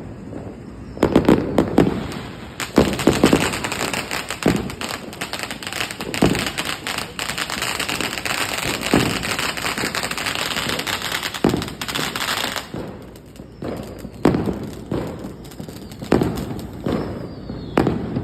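Firecrackers going off: a string of firecrackers crackles densely for about ten seconds, with louder single bangs scattered before, during and after it. A few short falling whistles come near the end.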